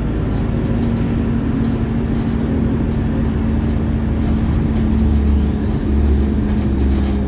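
Wright StreetLite single-deck bus's diesel engine running, heard from inside the bus: a steady drone over a low rumble that swells about five seconds in, with a few light rattles.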